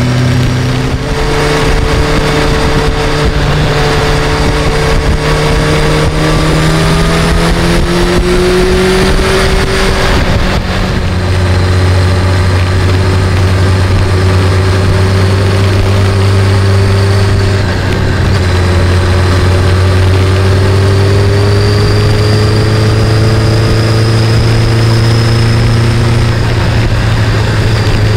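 Sport motorcycle engine running under way, with wind rushing past. Its pitch climbs slowly for about ten seconds, falls and holds steady, then rises gently again later.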